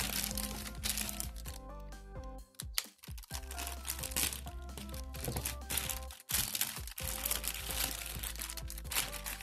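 Background music, with the crinkling of a thin plastic packaging bag being handled.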